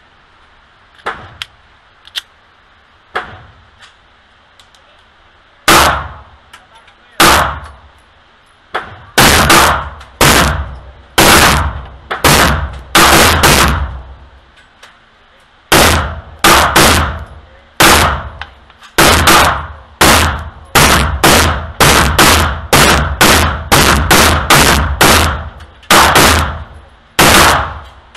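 Sig P365 9mm pistol shots at an indoor range: a few light handling clicks, then from about six seconds in a long string of shots, slow at first and then quicker, up to two or three a second, each ringing off the range walls.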